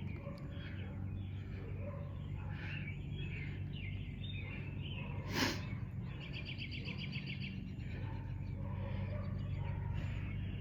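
Small birds chirping and singing, with a fast trill of repeated notes about six seconds in, over a steady low hum. A short loud rush of noise about five seconds in.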